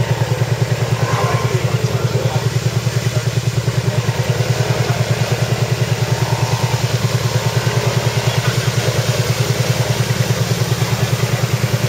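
ATV engine idling close by, a steady low, rapidly pulsing running sound that holds even throughout.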